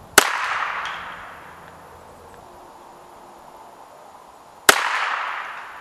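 Two shots from a Ruger 10/22 semi-automatic .22 LR rifle, about four and a half seconds apart. Each shot is followed by an echo that dies away over about a second. These are sighting shots to check the scope's zero.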